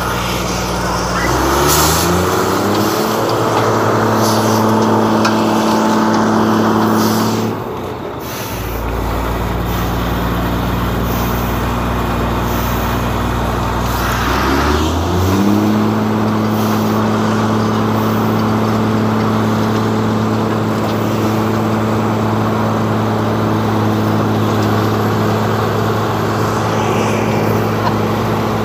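Diesel engine of a Wirtgen W 100 F cold milling machine revving up and running steadily at working speed over a constant rushing noise. It drops back to a low idle about eight seconds in, then revs up again around fifteen seconds in and holds there.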